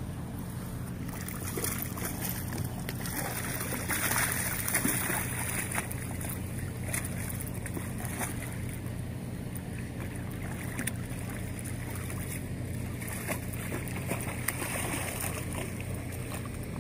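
A hooked leopard shark splashing and thrashing at the water's surface, over a steady low engine hum; the splashing is loudest about four to five seconds in.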